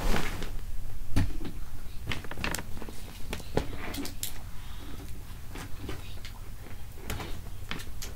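Electric fan running with a steady low hum, with scattered sharp clicks and creaks over it.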